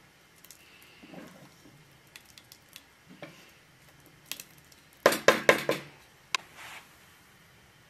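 Wooden spoon stirring thick rice and milk in a metal cooking pot: soft wet squelches, then, a little past halfway, a quick run of sharp knocks and scrapes as the spoon hits the pot's side, with one more knock just after.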